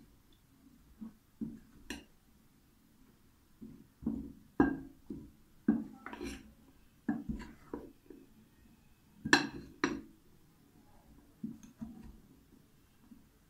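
Metal spoon clinking and scraping against a glass mixing bowl in irregular strokes, stirring a dry mix of gram flour and potato cubes. Two clinks stand out as the loudest, a little before halfway and again about two-thirds through.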